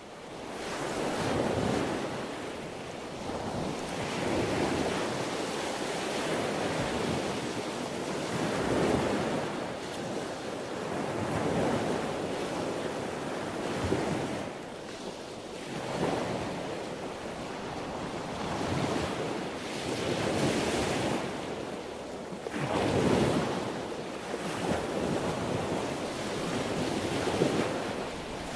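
Sea waves washing in and breaking on a shore, a continuous rush of surf that swells and falls back every few seconds.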